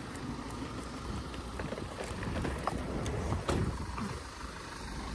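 Pushchair wheels rolling over brick paving: a low steady rumble with faint scattered clicks.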